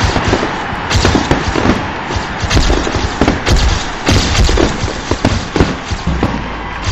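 A dense, irregular run of sharp bangs and thuds over a steady hiss.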